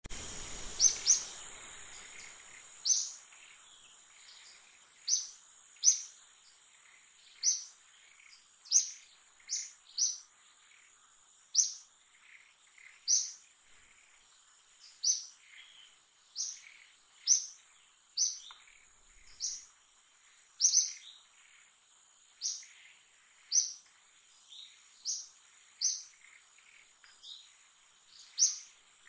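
A short, high-pitched chirping call, falling in pitch, repeated about once every second or so, over a steady high-pitched insect drone.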